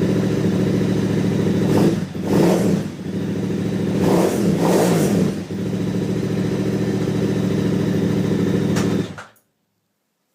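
KTM 990R motorcycle engine idling, blipped up and back down twice, about two and four seconds in, then shut off about nine seconds in. The owner hears a strange sound from this bike since a Rekluse clutch was fitted to it.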